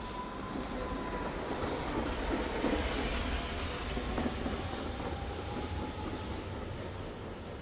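Tatra T3 tram passing close by on street rails: wheels rumbling and clicking over the track with a thin whine that slowly falls in pitch. It is loudest two to three seconds in, then fades as it moves away.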